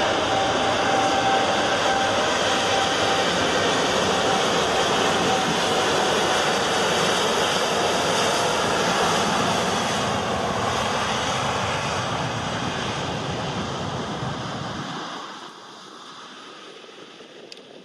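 Boeing 787-8 airliner's jet engines at takeoff thrust, a loud steady roar mixed with the hiss of spray thrown up on the wet runway. About fifteen seconds in the sound falls away sharply and the deep rumble disappears.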